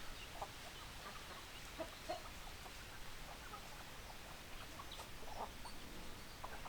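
Chickens clucking softly, short scattered clucks every half-second or so over a faint steady hiss.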